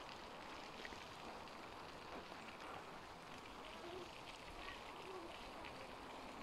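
Faint outdoor ambience: a steady soft hiss with a few faint scattered ticks.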